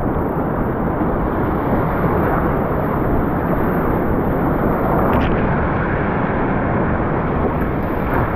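Loud, steady rush of whitewater in a river rapid, heard close up from a kayak running through it, with a brief knock about five seconds in.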